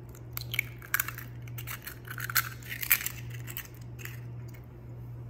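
Eggs being cracked with a metal spoon over a ceramic bowl: a string of sharp taps and the crackle of the shell being broken and pulled apart, loudest about one second and three seconds in.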